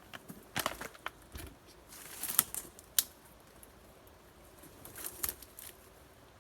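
Footsteps pushing through swamp brush: brushing vegetation rustling, with sharp cracks of twigs, the sharpest about two and a half and three seconds in.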